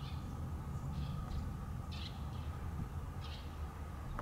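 Small birds chirping outdoors: about six short, high chirps scattered through a few seconds, over a low steady rumble.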